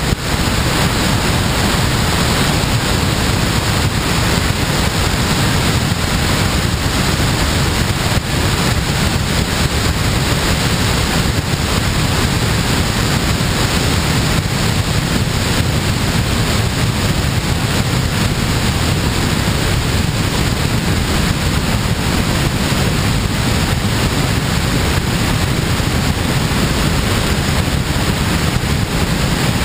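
Steady, loud rush of airflow over a camera mounted on a glider's wing in flight, a wind noise with no engine tone in it.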